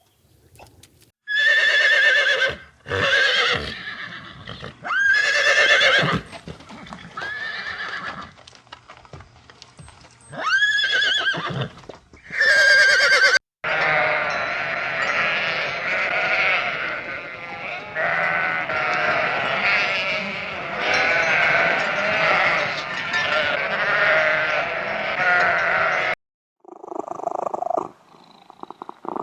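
Farm animals calling: a few separate calls about a second long, then a dense chorus of many overlapping calls that cuts off suddenly near the end.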